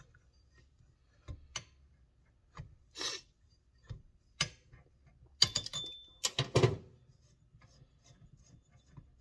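Hand tools working on a brake master cylinder: scattered metallic clicks and knocks, with a cluster of louder clanks a little past halfway and a brief high squeak among them.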